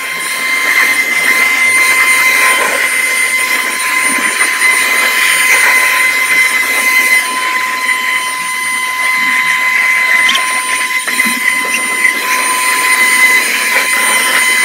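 Ryobi battery-powered leaf blower running, its fan motor giving a steady high whine over rushing air as it blows rinse water off a freshly washed motorcycle.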